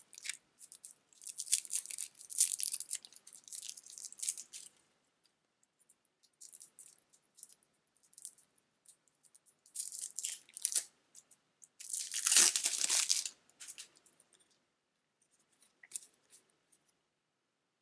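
Plastic shrink-wrap on small card decks crinkling and tearing as it is pulled off by hand, in several bursts with the loudest about twelve seconds in, then a few light clicks of cards being handled.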